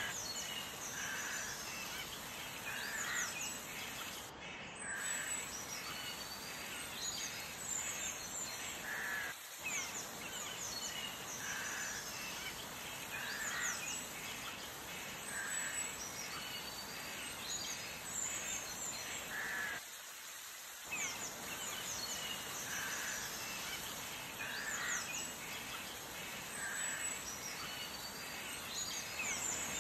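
Birds calling and chirping over a steady outdoor hiss: one short call repeats about every second and a half, with quick high chirps in between.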